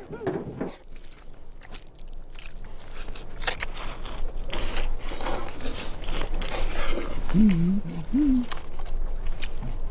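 People slurping and chewing jjajangmyeon (black-bean-sauce noodles) eaten with chopsticks. Quick wet slurps come thick and fast from about three and a half seconds in. Two short low hums from an eater come about seven and a half seconds in.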